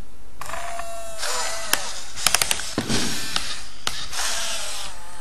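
i-Cybie robot dog's geared leg motors whirring in short spurts, the whine sliding up and down in pitch as it pushes itself up from lying down. A few sharp clicks come about two seconds in.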